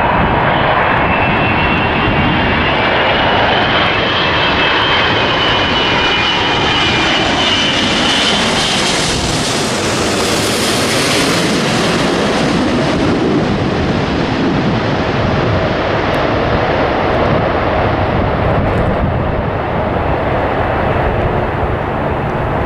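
Jet airliner passing close by: a loud, steady engine rush with a high fan whine. The sound swells to its peak about halfway through, and the whine drops away as it then slowly fades.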